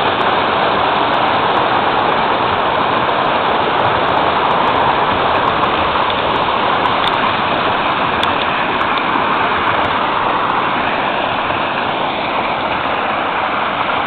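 Small waterfall rushing steadily over a rock ledge into a woodland stream, a little softer near the end, with scattered faint ticks of light rain.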